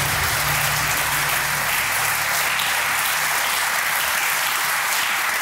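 Studio audience applauding steadily, with a low held tone underneath that fades out about four seconds in.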